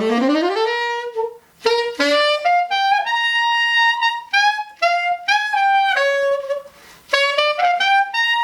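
Buescher Aristocrat tenor saxophone played with an old, used Rico 2.5 reed: a run up from a low note into the upper register, then short phrases of upper-register notes with two brief pauses. It is a reed play-test, and the player finds this 2.5 feels as hard as a 3.5.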